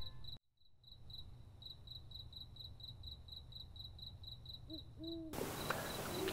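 Faint night ambience of crickets chirping in a quick, even pulse of several chirps a second, with two brief low hoots near the end.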